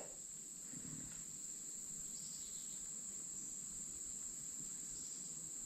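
Steady, high-pitched drone of a summer insect chorus, unbroken throughout.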